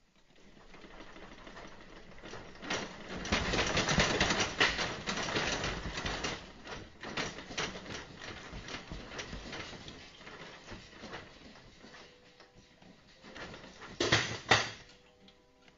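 Shelving, fixtures and loose objects in a warehouse rattling and clattering as a magnitude 5.7 earthquake shakes the building, loudest about four seconds in and dying down. Two loud bangs come near the end.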